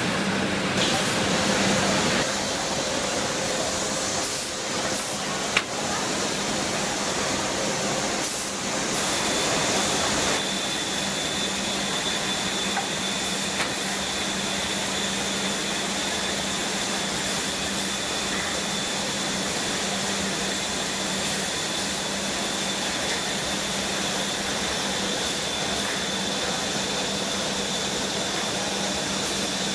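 Bread production line machinery running: a steady mechanical din of conveyors and motors with a low hum. The noise changes abruptly about 2 and 10 seconds in, and a faint high whine runs from about 9 seconds in.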